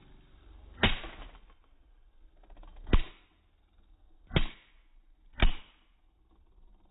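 Beyblade spinning tops clashing in a plastic stadium: four sharp knocks, one to two seconds apart, each fading out briefly.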